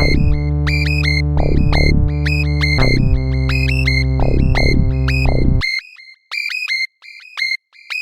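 Instrumental hip-hop beat at the end of the song: synthesizer bass and chords with a high, repeating synth melody and falling pitch sweeps. About five and a half seconds in, the bass and chords stop suddenly, leaving only the high synth melody.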